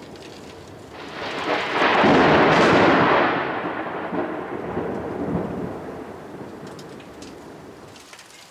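A clap of thunder. It swells about a second in, peaks loudest for a second or so, then rumbles away slowly, with rain behind it.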